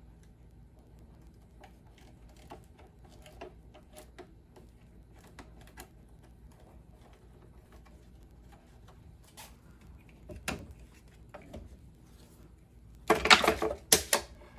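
Scattered faint clicks and light taps from handling the glued acrylic subwoofer basket, then a quick cluster of loud, sharp plastic clicks and knocks about a second before the end as it is opened up.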